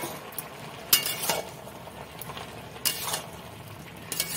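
Flat metal spatula stirring vegetables in a large aluminium wok, striking and scraping the pan in a few sharp clinks over a steady low hiss.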